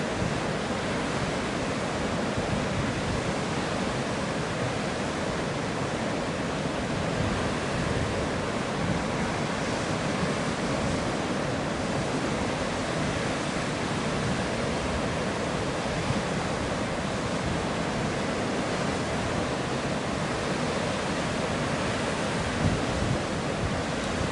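Ocean surf along a rocky shore: a steady, even rush of water without distinct single wave crashes.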